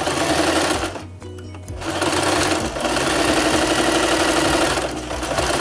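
Singer Prelude electric sewing machine stitching through layered fabric: it runs for about a second, stops for under a second, then runs again steadily, easing off briefly near the end.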